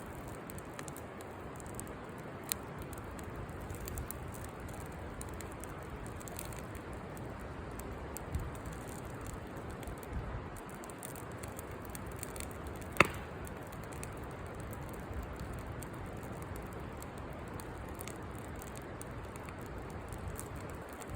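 Campfire burning: a steady low crackle and hiss of burning wood, with a few sharp pops, the loudest about thirteen seconds in.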